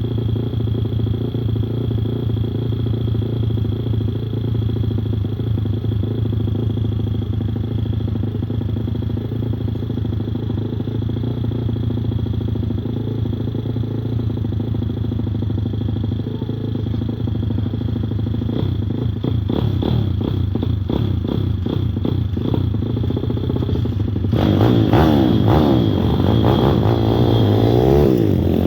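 YX160 single-cylinder four-stroke pit-bike engine, just after a valve adjustment to 0.004/0.006 in clearances, running at a steady idle. About two-thirds in the engine note starts to waver, and near the end it rises and falls in pitch and gets louder as the throttle is worked.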